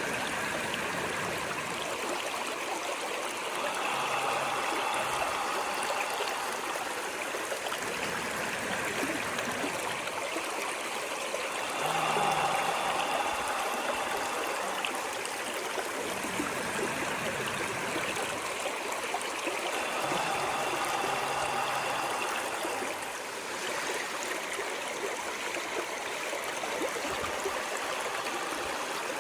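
Running water of a stream, a steady rush that swells a little every eight seconds or so.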